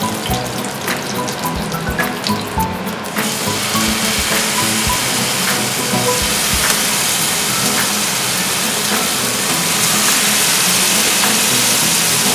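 Curry leaves spitting in hot coconut oil with small pops, then a louder, steady sizzle from about three seconds in as masala-coated kingfish steaks go into the pan and fry. Background music plays underneath.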